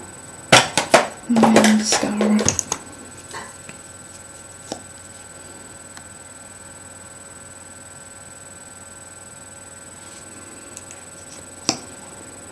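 Makeup items being handled: a cluster of sharp clicks and knocks about half a second in, then about a second of rattling handling noise with two short low hums. After that come only a few faint clicks, with one sharper click near the end.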